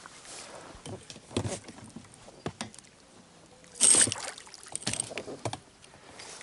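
Fishing gear being handled: scattered light knocks and clicks, with one short, louder rushing sound about four seconds in.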